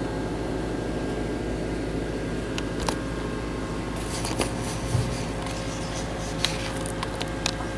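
Steady background hum, with scattered light clicks and rustles from about three seconds in.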